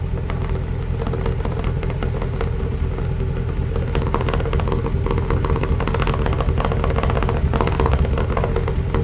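Ford 6.2-litre V8 gasoline engine running rough with a steady low rumble and irregular crackles, misfiring on several cylinders (1, 3, 5 and 6) and misfiring more now while the exhaust throws out a lot of water.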